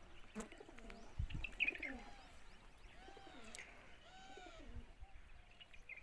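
Birds chirping and pigeons cooing, with short arched calls repeating about once a second.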